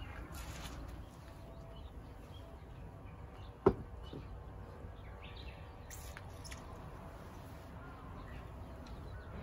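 Faint outdoor background noise with one sharp knock about three and a half seconds in, from handling the garden plant pots on the brick stand.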